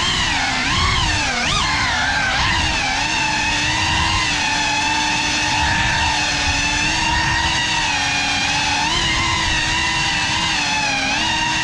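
Motors and propellers of a GEPRC Cinelog 35 cinewhoop FPV drone whining as it flies. The pitch swoops up and down with the throttle in the first couple of seconds, then holds fairly steady with small wobbles.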